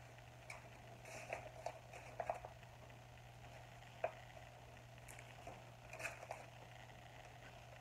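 Faint rustling and small clicks from cross-stitch fabric and its packaging being handled, with one sharper tick about four seconds in, over a low steady hum.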